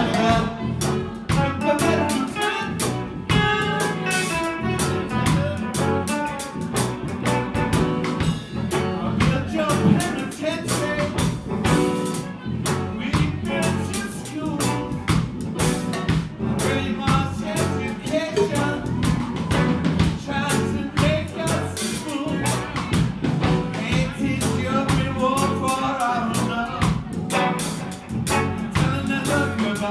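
Live band playing with electric guitars, bass, keyboards and a drum kit keeping a steady beat, heard from out in the audience.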